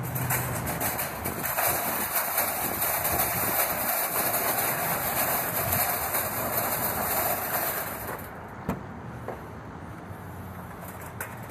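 Metal shopping cart rolling over asphalt, its wheels and wire basket rattling steadily. About eight seconds in the rattle drops to a quieter roll, with a couple of sharp knocks.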